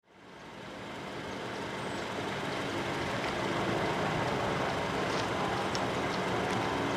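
Steady background rumble of road traffic, rising from silence over the first second or two.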